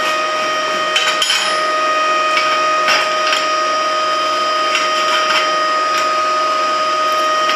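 A few scattered metallic taps and scrapes on a freshly welded thin steel plate, over a steady high whine.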